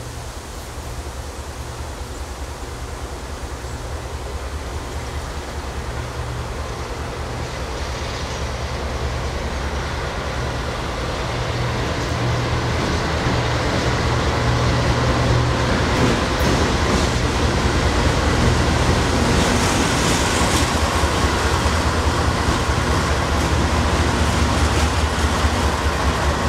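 CSX freight diesel locomotives hauling a coal train, their engines running with a steady low drone that grows louder over about the first fourteen seconds as the train approaches. The rumble of wheels on rail then rises and carries on steadily as the train passes.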